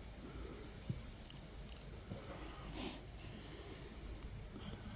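Steady high-pitched insect chirring outdoors, with a few faint clicks, likely light handling.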